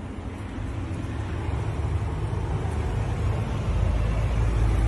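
Low, steady outdoor street rumble, growing louder near the end.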